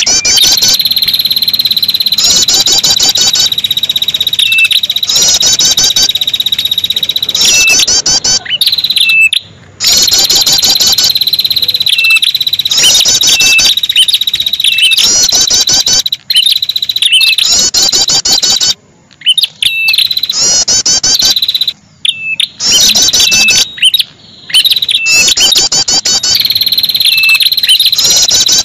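Ashy tailorbird (prenjak kepala merah) lure recording: repeated bursts of rapid, high chirping trills over a steady high-pitched whine. The sound breaks off suddenly for a moment several times.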